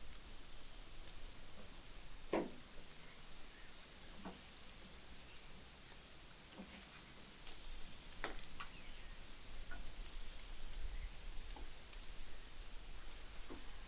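Outdoor ambience with faint bird chirps over a steady low hum, broken by a few scattered light knocks and taps, the loudest about two seconds in.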